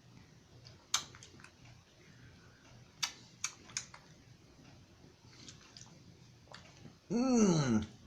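A few sharp clicks of a utensil against a dish during eating: one, then three close together a couple of seconds later. Near the end comes a loud, drawn-out "mmm" of enjoyment while chewing.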